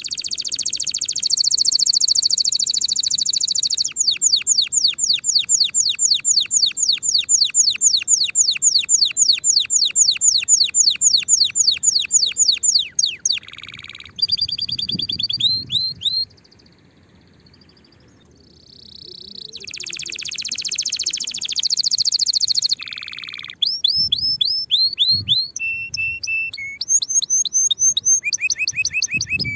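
Domestic canary singing a long song of rolls and trills: first a dense buzzy roll, then a run of quick falling notes, about six a second, lasting nearly ten seconds. After a pause of a few seconds a little past halfway, it goes on with another buzzy roll and short, varied trill phrases.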